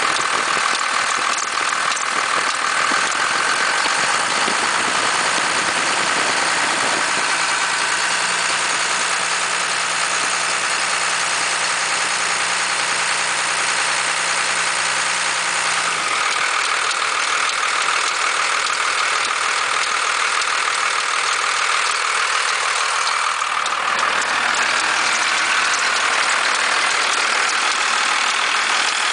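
1991.5 Dodge Cummins 5.9-litre turbo-diesel inline-six running at idle with an unusual noise, which the owner ties to the belt tensioner bucking at idle. The noise goes away as the revs rise. The sound changes character about halfway through and again near the end.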